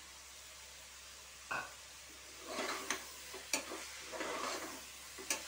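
Cut snake gourd being stirred and sautéed with a metal spatula in a pressure cooker of frying masala: irregular scraping and sharp clicks of the spatula against the pot, with a light sizzle. A single knock comes about a second and a half in, before the stirring starts.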